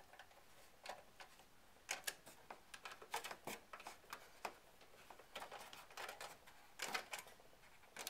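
A screwdriver tightening the power supply's mounting screws into a PC case. It makes a faint, irregular series of metal clicks and ticks, with several louder clusters of clicks.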